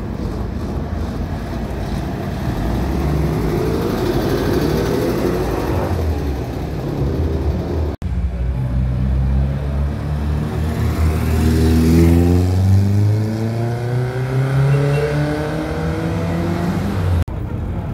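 Vintage car engines passing close by and accelerating, first one car, then another whose engine note climbs steadily in pitch as it speeds up through the second half.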